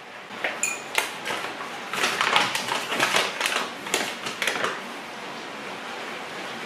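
Flour bag crinkling and rustling as it is opened and handled, with a few sharp clicks about a second in. Steady hiss of rain behind it, heard on its own from about five seconds in.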